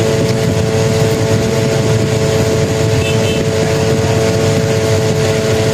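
A machine running steadily: a constant droning hum over a dense rushing noise.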